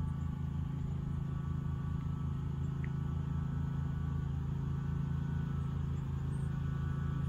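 Boat motor running steadily at low speed, a constant low hum with a faint buzz.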